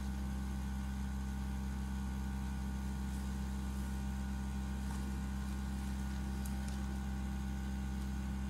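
Small airbrush compressor running with a steady, even hum.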